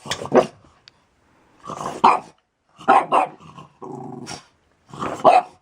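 A dog barking and growling in five short outbursts about a second apart.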